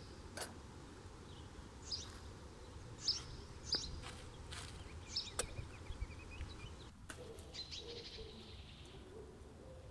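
Forest birdsong: small birds chirping on and off, with a few sharp clicks or snaps. About three-quarters through, a dove starts cooing low and repeatedly.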